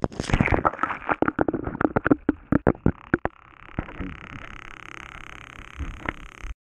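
A GoPro camera being lowered down an ice-fishing hole on a line: a run of sharp knocks and clicks as it is handled and bumps down the hole, then a steady muffled hiss once it is underwater. The sound cuts off suddenly near the end.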